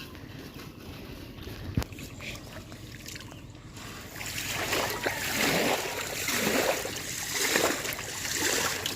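Water splashing and sloshing. It starts about four seconds in and comes in repeated surges roughly once a second, with a single sharp knock a couple of seconds before.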